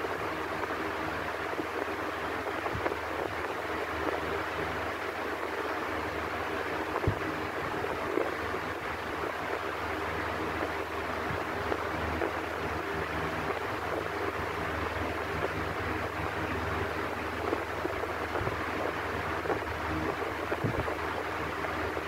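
Electric fan running steadily: an even rush of air over a low hum, with a few light ticks.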